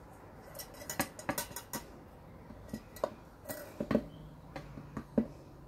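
Stainless steel paint-pouring cup clinking and knocking as it is handled: a string of irregular light metallic knocks.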